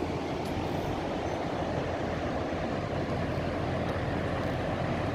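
Steady rumble of a moving vehicle heard from inside, with a constant low hum underneath, growing slightly louder.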